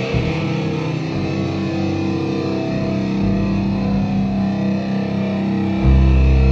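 Live rock band playing electric guitar, bass guitar and drums in a small club. A loud, sustained low bass note comes in near the end and is the loudest part.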